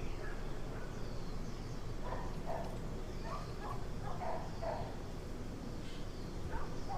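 Outdoor animal calls: short, high, falling bird chirps throughout, with a series of lower repeated calls from about two seconds in, over a steady low background noise.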